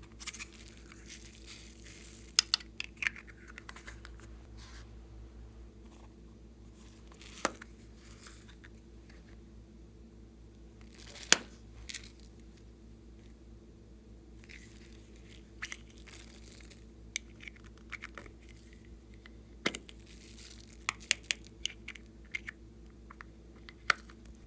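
Glossy slime being squished and stretched by hand, giving scattered sharp sticky pops and crackles, bunched near the start and through the second half, over a faint steady hum.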